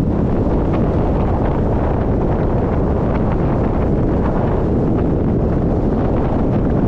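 Steady wind noise rumbling on the microphone, even and unbroken, with faint light ticks above it.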